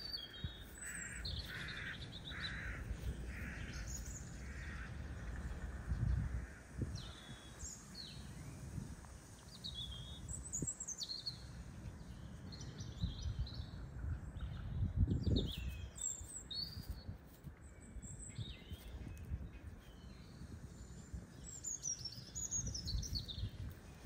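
Small birds chirping with short falling calls throughout, and a crow cawing about five times in a row near the start. A couple of low thuds stand out, the louder one past the middle.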